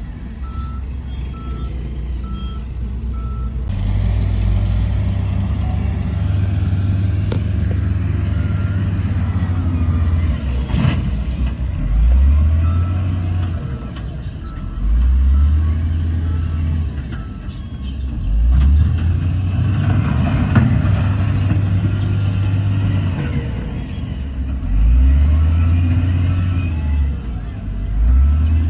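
Heavy diesel construction machinery at work, its engine running low and revving up again and again every few seconds. A reversing alarm beeps in a steady series of short pulses in three spells, at the start, around the middle and later on.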